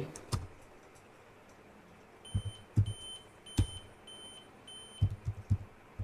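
Dell Vostro 3750 laptop's warning beeper sounding short, high beeps about twice a second from about two seconds in. It is the alarm for a real-time clock error, an unset system date and time. Mixed with it are soft knocks and clicks of keys being pressed on the laptop keyboard.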